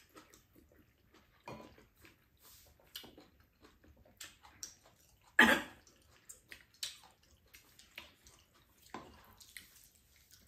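Quiet mukbang eating sounds: spoons and chopsticks clicking now and then against bowls and a frying pan, chewing, and one louder slurp about five seconds in.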